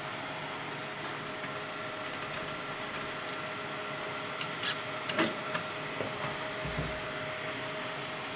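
3D printer running: a steady hum of its fans and stepper motors with two steady tones, and a few sharp clicks a little past the middle.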